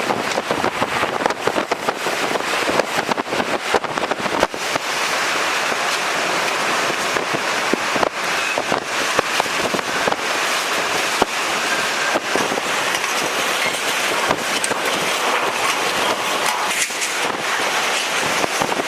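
Category 4 hurricane winds and driving rain: a loud, steady rush studded with many sharp cracks and pops, densest in the first few seconds.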